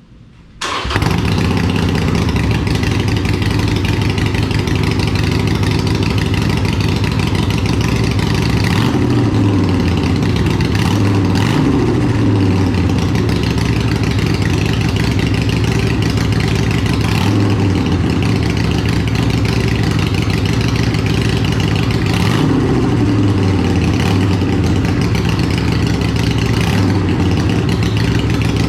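Harley-Davidson Iron 883's air-cooled V-twin breathing through a Vance & Hines Big Radius exhaust, starting up just under a second in and then idling, with a few throttle blips that rise and fall in pitch.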